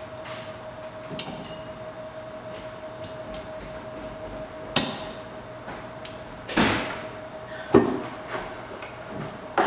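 Steel-on-steel clinks and knocks from a long magnetic socket tool working inside a steel tube: a ringing metallic clink about a second in, a sharp click midway, a short scraping slide, then two knocks near the end, over a steady hum.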